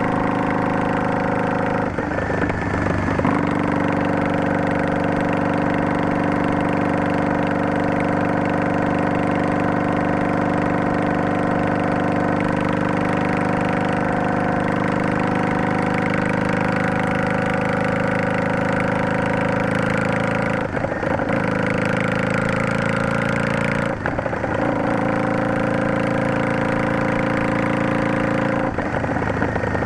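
Yamaha DragStar 400's V-twin exhaust through an aftermarket Garage T&F vent muffler with an inner silencer, running under way at a steady note. Short breaks about two, twenty-one, twenty-four and twenty-nine seconds in change the pitch of the note.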